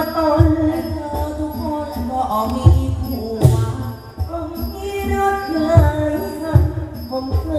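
A likay leading man's sweet, drawn-out lae (Thai sung recitation) into a microphone, over musical accompaniment with a drum beat about once a second and a brief crash about halfway through.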